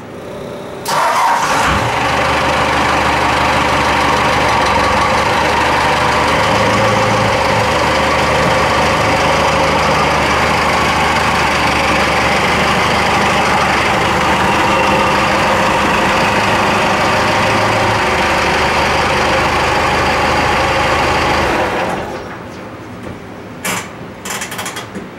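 Cummins turbo diesel in a bullnose Ford F-150 starting up about a second in and running steadily while the truck is driven in slowly. It shuts off near the end.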